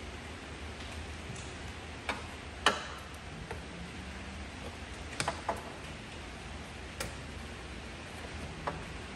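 About eight sharp clicks and taps at irregular intervals, the loudest about two and a half seconds in, from hand tools and parts being handled during engine reassembly. A steady low hum runs underneath.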